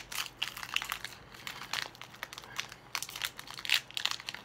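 Foil wrapper of a Pokémon TCG Hidden Fates booster pack crinkling in the hands as it is pulled open, a run of irregular crackles, the loudest a little before the end.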